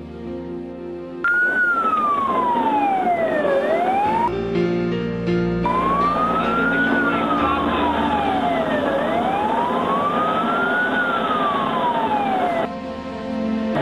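Fire engine's wail siren sweeping slowly up and down, about one rise and fall every four seconds, heard from inside the cab over the truck's engine. Music plays briefly at the start before the siren cuts in.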